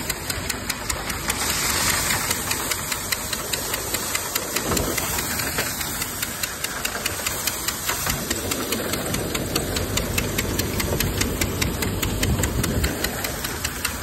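Groundnut thresher running under load as plants are fed into it: a steady machine drone with a rapid, even knocking clatter.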